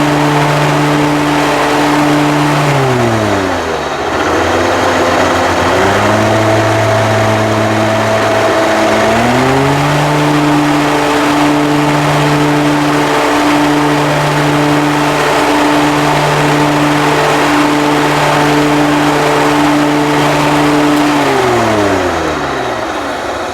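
Commercial riding lawn mower's engine running at high speed. It is throttled down about three seconds in, picks up a little a few seconds later, is brought back to full speed about ten seconds in, and is throttled down again near the end.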